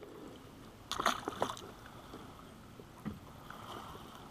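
Small waves lapping against a boat's hull, with a short burst of splashing about a second in as a largemouth bass is let go over the side, and one more small splash a little after three seconds.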